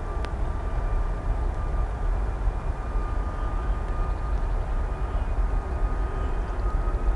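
Four-engined Airbus A340's jet engines at take-off power during its take-off roll: a steady low rumble with a faint high whine running through it.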